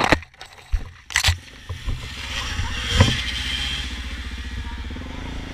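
Small off-road motorbike engine running through a deep muddy puddle, with water splashing. The sound is muffled and drops away for about a second near the start, and there is a splash about three seconds in. After that the engine runs steadily.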